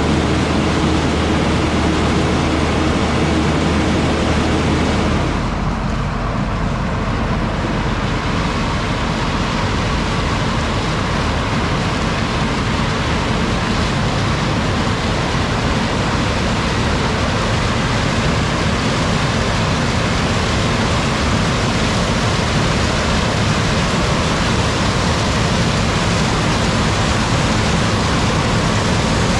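Large diesel farm machinery running steadily under load, with the engine note shifting slightly about five seconds in.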